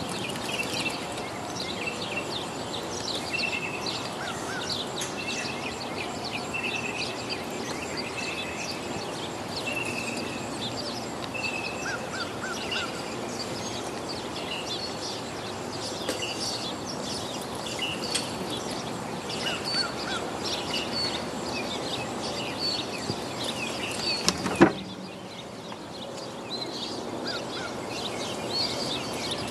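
Outdoor ambience of many small birds chirping and singing over a steady background hiss. Late on there is one sharp click, after which the background hiss is lower.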